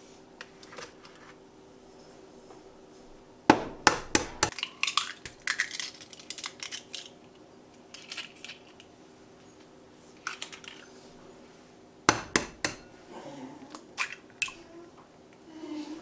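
Two eggs cracked open into a bowl, about eight seconds apart: each a sharp knock followed by crackling of the shell being pulled apart. Light clicks of a plastic egg carton come near the start, over a faint steady hum.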